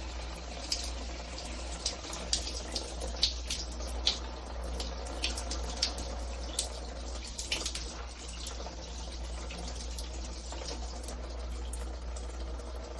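Water running from a handheld shower head, with irregular splashes and droplet ticks, most frequent in the first half, over a steady low hum.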